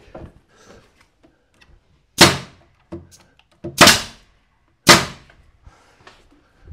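Three loud, sharp knocks on the chestnut oak cabinet over about three seconds, as the glued bracing is worked tight during clamping.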